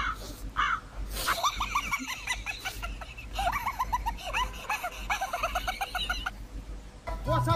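A crow cawing twice, then several seconds of rapid, high-pitched laughter in quick repeated bursts, with a short break partway through.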